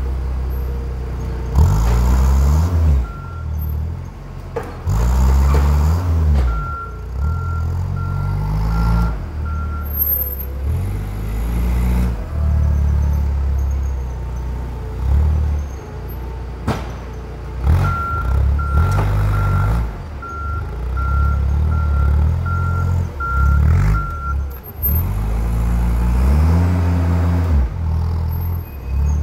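Propane forklift clamp truck engine revving up and down over and over while it manoeuvres. Its reversing alarm beeps in two runs, about one and a half beeps a second. There is a single sharp knock a little past the middle.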